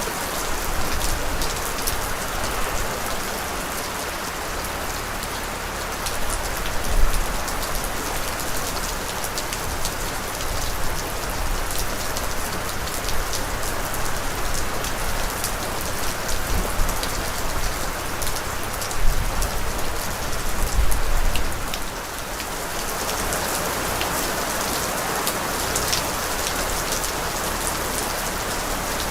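Steady rain falling, a dense hiss with the fine patter of individual drops. There are a few brief low rumbles, the strongest about a quarter of the way in and again about two-thirds through.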